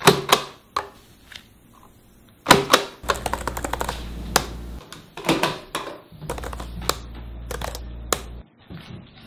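Typing on a laptop keyboard: sharp key clicks, single strikes and short quick runs, at an uneven pace, with a low hum that comes and goes underneath.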